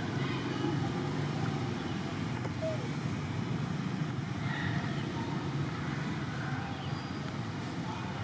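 Steady low rumble of vehicle engine noise.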